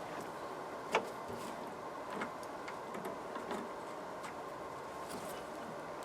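Faint, scattered clicks and light knocks from an old rear door handle assembly, plastic and metal, as it is worked at to pull it out of a van's door. The sharpest click comes about a second in, over a steady faint hiss.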